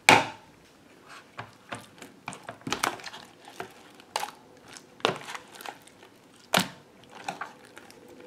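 Sticky, stringy slime being stirred and pulled with a metal spoon in a bowl, giving irregular short squelches and clicks. The glue-and-foundation mix is thickening into slime as the borax activator takes hold.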